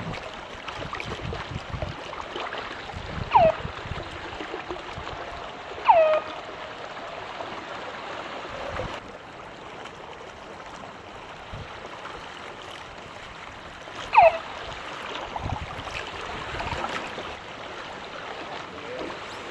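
Water rushing and gurgling along the hull of a small sailing boat under way. Three times, a short high squeal falls sharply in pitch over the water noise; these are the loudest sounds.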